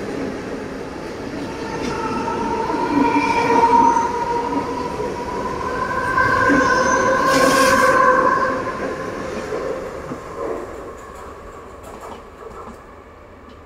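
Mumbai suburban electric multiple-unit local train pulling out and gathering speed past the platform: an electric whine that climbs slightly in pitch over the noise of wheels on rails. It is loudest about eight seconds in, then fades away as the last coaches leave.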